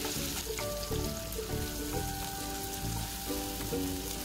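Sliced chilli, onion, lemongrass and ginger sizzling in a little hot oil in a wok as they are sautéed, a steady crackling hiss. Light background music with a simple repeating melody plays alongside.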